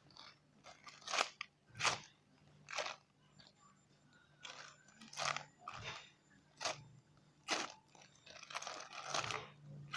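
Short crinkly rustles as a squishy toy is handled, about one a second, over a faint steady low hum.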